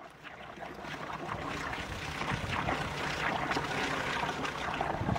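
Motorboat running across the water, with water splashing and sloshing; the sound fades in over the first couple of seconds.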